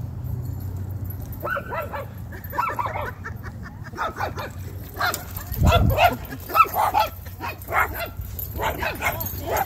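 Husky barking and yipping in a string of short, high, bending calls, starting about a second and a half in and going on in bursts. A low thump comes near the middle.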